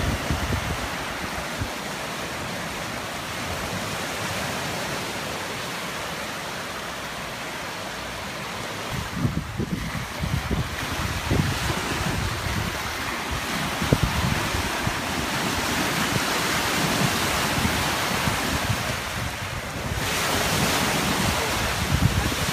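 Choppy lake waves washing and breaking, with wind buffeting the microphone in irregular low gusts.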